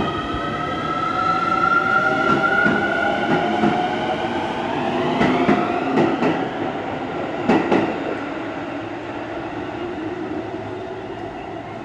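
Keio Line electric train accelerating, its traction motors whining in several tones that rise in pitch, with wheels clacking over rail joints a few times midway before the sound fades.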